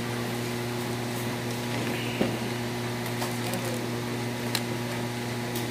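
Steady machine hum in the room, with a few light clicks and rustles as pizza is picked from its paper-lined cardboard box.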